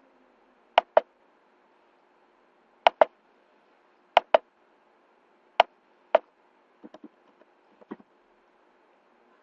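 Computer mouse clicked four times, each a sharp press-and-release double click, followed about seven seconds in by a few softer keyboard taps as a number is typed, over a faint steady hum.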